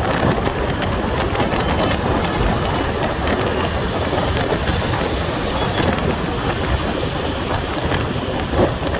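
Steady rushing road noise of a vehicle moving along a city street, tyre and wind noise mixed with surrounding traffic.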